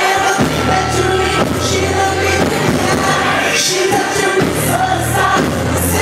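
Live pop/R&B concert music heard from the audience: a male singer's amplified vocal over deep, sustained bass notes, loud through the venue's PA.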